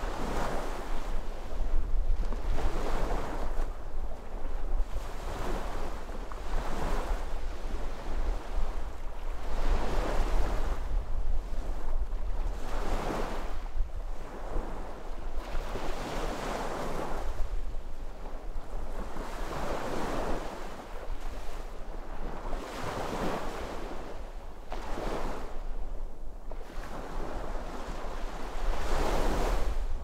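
Sea waves breaking and washing up on the shore, one swell after another every two to four seconds, over a steady low rumble.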